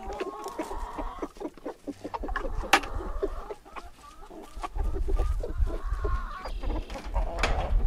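Hens clucking inside a chicken tractor pen at feeding, with a sharp tap about three seconds in.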